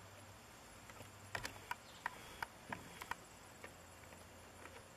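Faint, irregular sharp clicks and taps from roofers working on a membrane-covered roof deck, about eight of them bunched in two seconds starting a little over a second in, over a low steady background.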